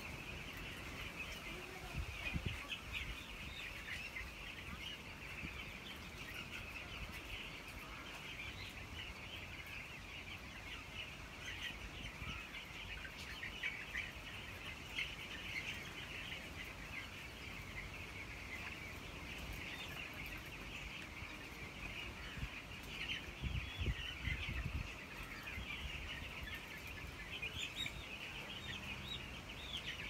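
A flock of young chicks peeping continuously, a dense chorus of many short high chirps, with a few dull low bumps about two seconds in and again around twenty-four seconds.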